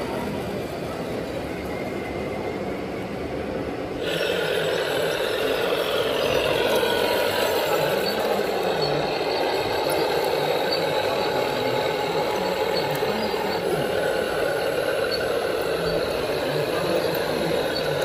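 Radio-controlled model truck running, its motor whining and shifting in pitch. It gets louder and busier about four seconds in, over a steady background noise.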